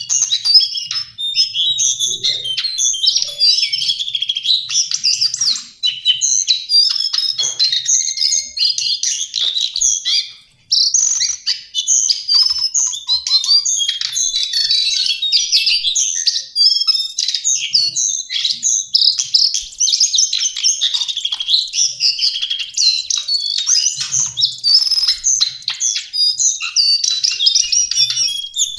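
Lesser shortwing (cingcoang coklat) singing a fast, high-pitched, continuous warbling song, broken by a short pause about ten seconds in.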